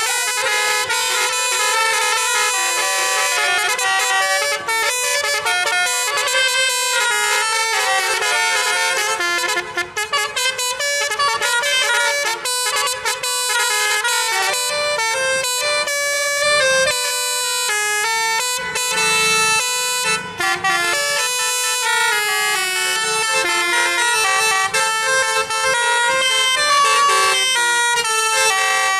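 Bus 'telolet' multi-tone horn (basuri type) playing a tune, its pitch stepping from note to note almost without a break.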